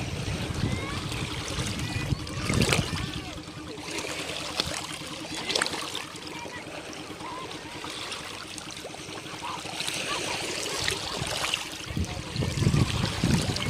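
Small ocean waves washing and trickling along a beach, with scattered splashes and a louder surge of surf near the end. A faint steady hum sits underneath and stops shortly before the end.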